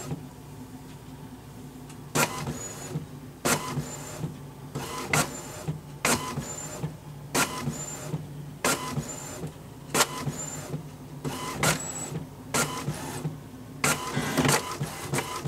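All-in-one inkjet printer making a copy with its scanner lid open. A steady motor hum runs under sharp mechanical clacks, roughly one a second, each followed by a short high whine. The sound grows louder and busier near the end as the copy prints.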